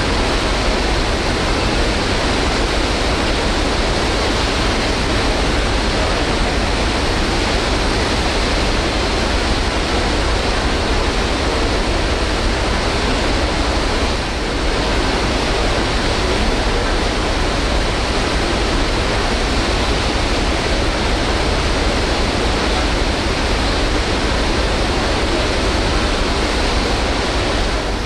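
Steady, loud rush of wind and choppy sea, heard on the open deck of a ferry under way, with a deep rumble underneath.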